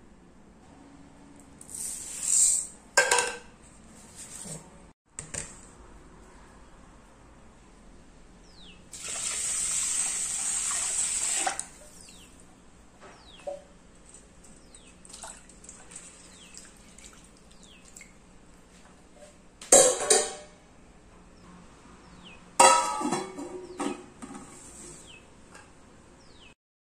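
Rice being rinsed in a stainless-steel pot. Water runs into it for a couple of seconds in the middle, a hand swishes the grains in the water, and there are louder splashes and clanks of the metal pot, the loudest about two thirds of the way through and again shortly after.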